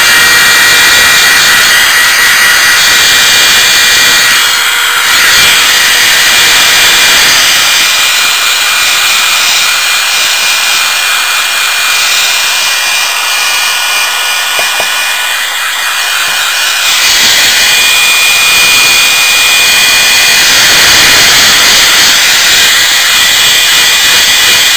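Handheld hair dryer blowing hot air over a circuit board to dry off flux remover: a loud, steady rush of air with a high motor whine, its tone shifting slightly a couple of times as it is moved about.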